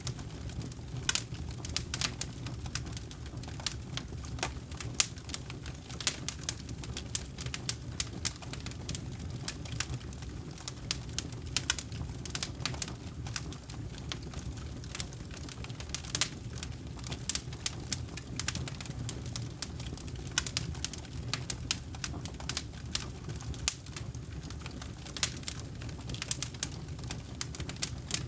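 Campfire burning, with wood crackling and popping at irregular moments over a steady low rumble of the flames.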